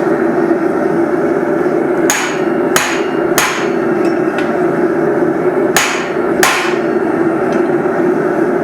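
Hand hammer striking a steel drift set in the eye of a hot hammer head, opening the eye from the second side: five sharp metallic blows, three about two-thirds of a second apart and then two more, each ringing briefly, over a steady background rush.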